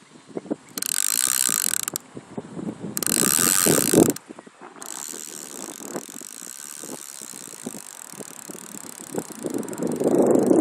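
Fishing reel's clicker ratcheting in two bursts of about a second each as line is pulled off the spool: a gar running with the bait. Then a steady hiss, and near the end a low rumble of wind on the microphone.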